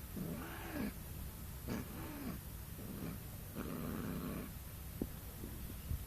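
Persian cat calling during mating: a run of low, drawn-out yowls, the first two rising then falling in pitch, then a longer, rougher growling call.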